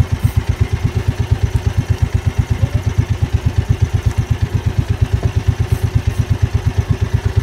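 Engine of a bangka outrigger fishing boat running steadily while trolling: a fast, even chug of about eight beats a second.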